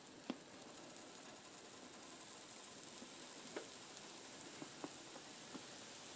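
Pancake batter sizzling faintly as it is poured into a hot nonstick frying pan with a trace of vegetable oil, a steady soft hiss with a few small ticks.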